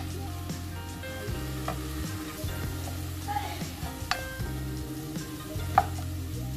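Wooden spatula stirring and tossing sweet potato leaves in a wok, with the leaves sizzling in the hot oil. A few sharp clacks come as the spatula knocks the pan, the loudest about four and six seconds in.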